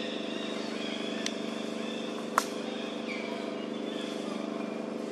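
An engine running steadily at idle, with one sharp click about two and a half seconds in.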